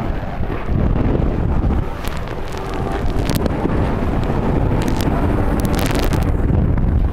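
Heavy wind buffeting the microphone with a steady rumbling rush of open-ocean water and spray, with a few brief crackles of splash in the middle.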